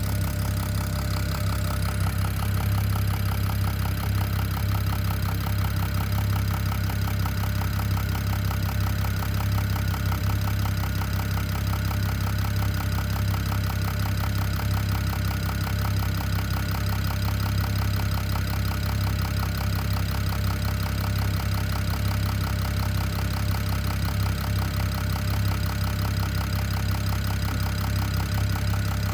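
BMW N54 twin-turbo inline-six running steadily with a rapid, even knocking sound that the owner suspects comes from the top end of the engine.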